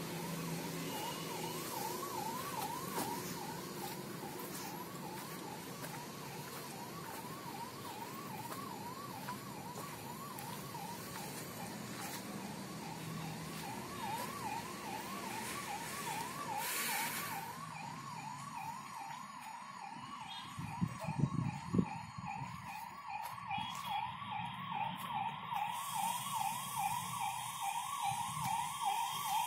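Electronic warbling alarm tone, rising and falling about three times a second at an even level throughout. A few low thumps come about two-thirds of the way in.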